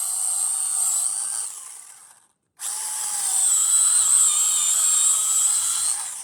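Small brushless battery chainsaw (TPLC S07A) running with a steady high whine. About one and a half seconds in the trigger is released and the chain winds down to a stop. It starts again abruptly a moment later, runs steadily, and winds down again near the end.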